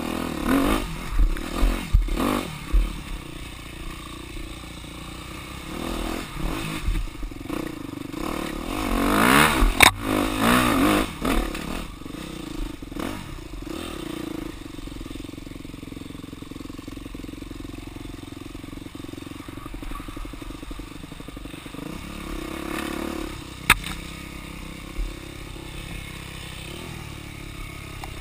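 Dirt bike engine running at low speed on a rough trail, revving up and back down about nine to eleven seconds in. Clatter and a few sharp knocks come from the bike over the rough ground.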